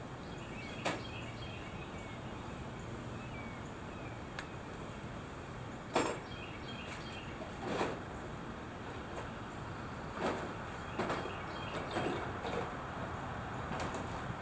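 A few scattered knocks and clunks, several seconds apart, from handling tools and timber, over a steady background with faint bird chirps.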